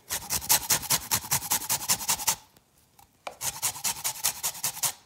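Lime peel rubbed quickly back and forth on a flat stainless-steel grater, zesting: a fast, even rasping of about eight strokes a second, in two runs with a short pause about two and a half seconds in.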